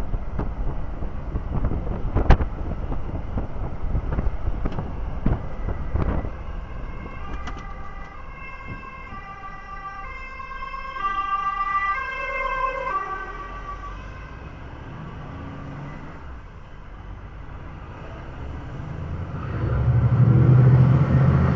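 An ambulance siren alternating between a higher and a lower note for several seconds in the middle, heard from inside a truck cab over road noise. Sharp knocks and rattles come in the first few seconds, and a louder low engine rumble builds near the end.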